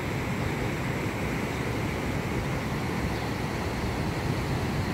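Steady rushing noise of river water pouring over a low concrete weir.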